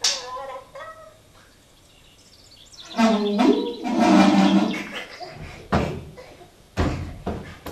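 A horn-like tone blown through the spout of a metal watering can, about two seconds long, stepping up in pitch partway through. A few loud knocks on the wooden chest follow.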